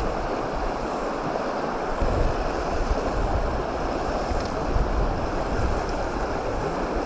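Shallow stream running over a stony riffle, a steady rushing, with gusts of wind rumbling on the microphone.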